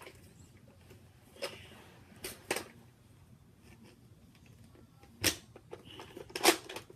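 Sharp plastic clacks from a Nerf Rival XV700 spring blaster being handled and fired: three light clicks in the first few seconds, then two louder clacks about five and six and a half seconds in.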